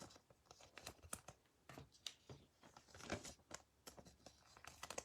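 Faint rustling and small scattered clicks of trading cards and their cardboard and wrapper packaging being handled.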